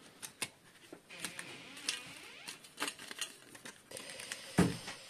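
Pages of a ring binder being turned by hand: light taps, clicks and paper and plastic rustling, with one louder thump about four and a half seconds in.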